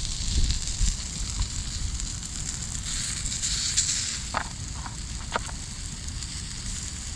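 Wood fire burning in a hinged fire box stove, crackling steadily, with a few short higher-pitched sounds about four to five seconds in.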